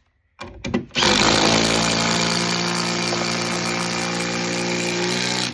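Bosch impact driver: two short trigger blips, then the tool runs at full speed for about four and a half seconds and stops abruptly.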